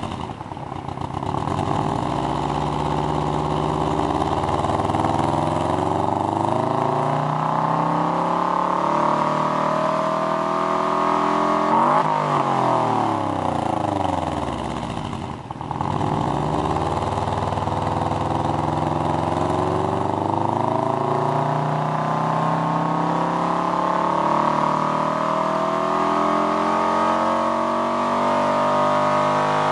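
Subaru Impreza WRX STi S202's turbocharged 2.0-litre flat-four, heard at the exhaust tailpipe, free-revved while standing still. The revs climb slowly for about twelve seconds, drop back over a few seconds, then climb slowly again and begin to fall near the end.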